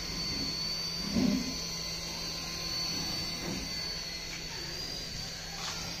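Small electric motors of a toy RC helicopter whining steadily at a high pitch under a low hum, with a soft thump about a second in.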